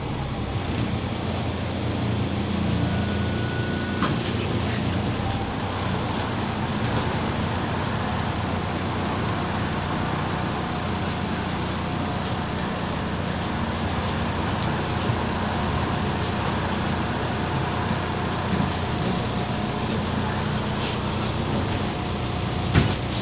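Interior of a MAZ 203.065 city bus under way: steady engine and road rumble, with a sharp click near the end.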